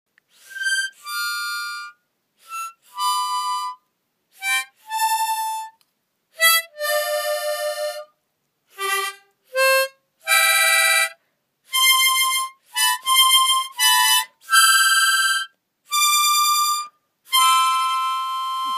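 Harmonica playing a string of short notes and chords with brief gaps between them, ending on a longer held note.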